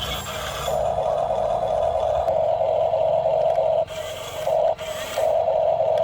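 Small electric gear motor of a radio-controlled model truck or bulldozer whirring steadily, easing off briefly twice near the end.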